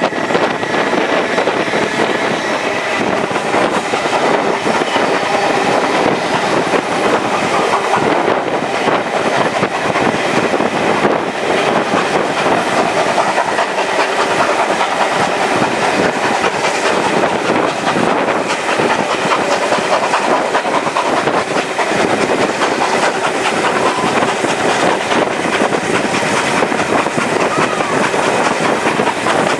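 A steam-hauled passenger train running, led by NSW C36-class steam locomotive 3642: a continuous clatter of carriage wheels on the rails.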